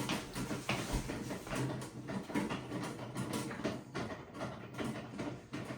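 LG WT7600HVA top-load washer starting a normal cycle with an empty drum: a steady motor hum with irregular clicks and knocks from the machine.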